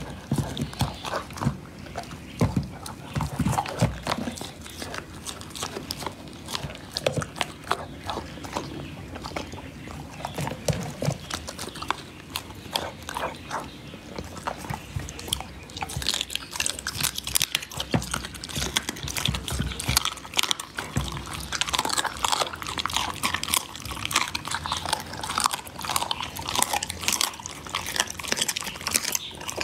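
Dog biting and chewing raw meat and bone: wet, close-up chewing with rapid crunches, getting louder and crunchier about halfway through as it eats a raw duck neck.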